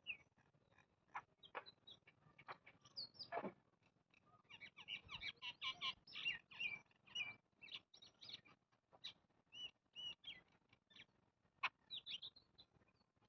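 Small birds chirping, many short high chirps and tweets, busiest about five to seven seconds in, mixed with scattered sharp clicks.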